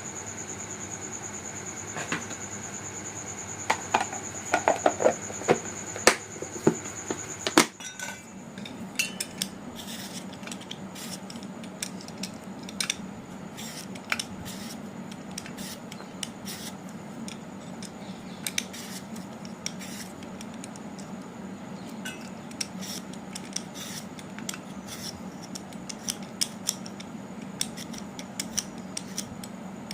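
Kitchen utensils and dishes clinking and knocking in irregular sharp clicks while food is prepared. A steady high whine in the background stops abruptly about eight seconds in, and a low steady hum carries on under the clinks.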